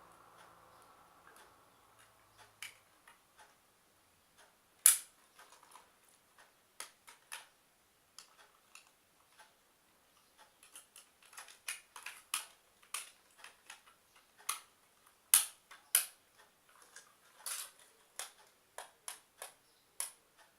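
Irregular sharp clicks and taps of small hard parts being handled, getting busier in the second half, with two louder snaps about 5 and 15 seconds in.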